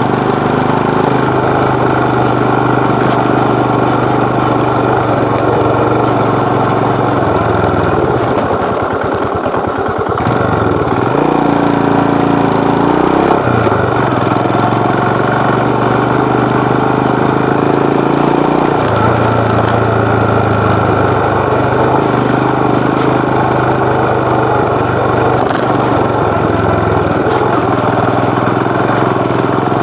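Royal Enfield Himalayan BS6's 411 cc single-cylinder engine and exhaust running under way as the motorcycle is ridden. The engine note drops about eight seconds in, picks up again around eleven seconds, and shifts once more near nineteen seconds.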